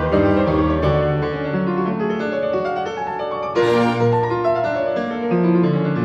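Background piano music, a slow melody over sustained chords.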